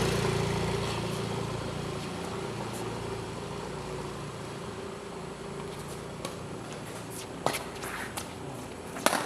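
A small engine running and fading away over the first couple of seconds, leaving a steady hum. Near the end come a few sharp knocks, the loudest two about a second and a half apart.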